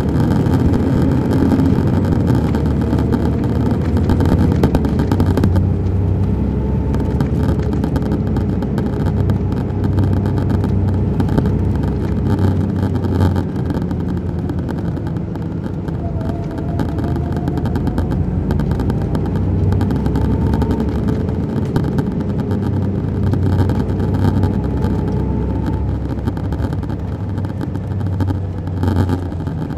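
A 2001 MCI D4000 coach's Detroit Diesel Series 60 inline-six diesel and Allison B500 automatic transmission running under way, heard from inside the bus: a steady rumble with a whine that slowly rises and falls in pitch as the bus changes speed.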